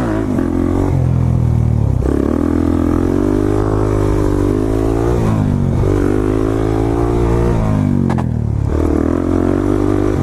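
Dirt bike engine accelerating through the gears. The pitch climbs and drops back at each upshift, about three times.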